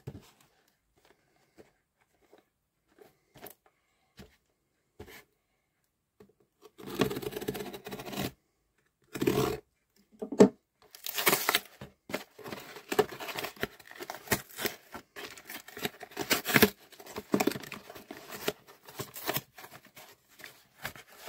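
A cardboard mailing box being opened: faint scattered ticks at first, then from about seven seconds in, repeated loud stretches of tearing and crinkling as the packing tape and cardboard flaps are ripped open.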